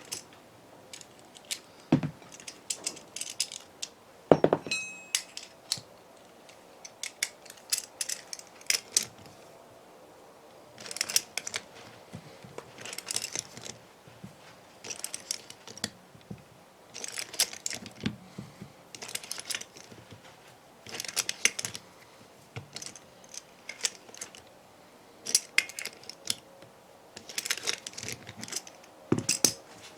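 Metal hand tools and engine parts clicking and clinking in short bursts, with a louder ringing metal clink about four seconds in and a few duller knocks.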